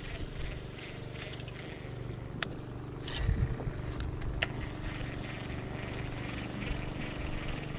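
A small motor hums steadily and low. Two sharp clicks and a short rush of noise come about two to four and a half seconds in, as the baitcasting rod and reel are cast and worked.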